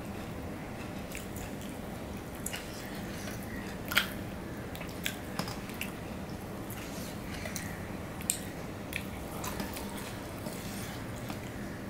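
Eating by hand: fingers mixing rice and cooked leafy greens on a stainless steel plate, with soft squishing and scattered sharp clicks, the loudest about four seconds in.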